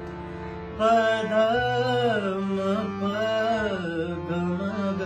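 Harmonium holding a sustained chord, joined about a second in by a man's voice singing a wordless, gliding melody over the drone.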